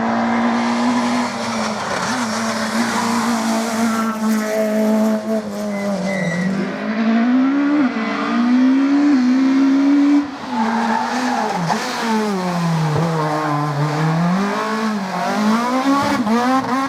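Rally car engine revving hard. Its pitch climbs in steps through the gears, drops abruptly just after the middle as it lifts off, then falls and rises again several times through braking and acceleration.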